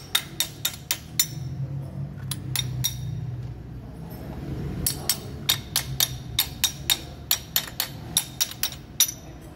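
Wrench on a camshaft bolt clicking in runs of sharp metallic clicks, about four a second, with pauses between the runs, as the camshaft of the timing-chain engine is turned. A steady low hum lies underneath.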